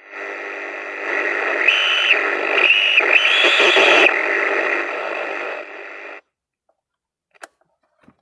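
Small radio's speaker hissing with static, stronger and shifting for a couple of seconds in the middle, then cut off abruptly about six seconds in. A few faint clicks follow. The radio is running on power from a repaired charger, a sign the charger works.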